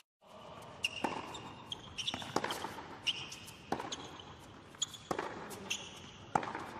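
Tennis rally on a hard court: the ball is struck by the rackets about every second and a half, with ball bounces and tennis shoes squeaking on the court between shots. The sound cuts out briefly at the very start.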